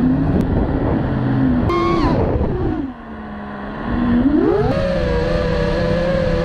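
Motors of a 5-inch FPV racing quadcopter (Lumenier 2206 2350KV motors on tri-blade props) whining, heard from the onboard camera over wind noise. About two seconds in the pitch drops steeply and the sound fades as the throttle comes off; about four seconds in it climbs back and holds at a steady, wavering pitch as the throttle is punched again.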